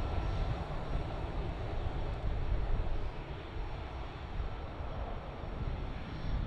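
Lufthansa Airbus A320's CFM56 jet engines running at taxi power as it rolls past: a steady low rumble that eases off a little about three seconds in.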